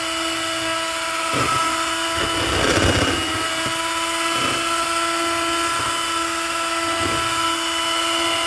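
Electric hand mixer beating egg whites in a bowl: the motor runs with a steady whine, and the beaters knock and scrape against the bowl now and then, loudest about three seconds in.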